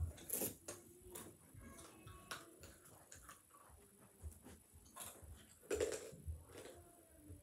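Faint, scattered knocks and clicks from a child handling a soft dartboard and moving about on carpet, with a louder thump a little before six seconds in.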